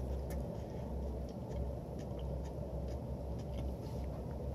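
Quiet, closed-mouth chewing of salad, heard as a few faint soft clicks over a steady low hum.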